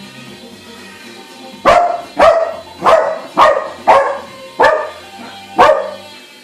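A dog barking seven times in a quick, uneven series, starting a little under two seconds in.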